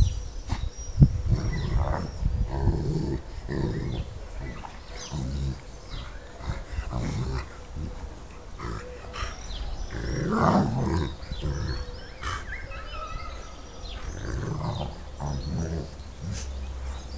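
Two dogs play-fighting, with play growls coming in irregular bursts and a louder, longer growl about ten seconds in.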